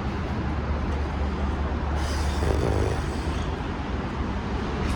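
Steady low rumble of a car, heard from inside the cabin, with a louder hiss for about a second and a half near the middle.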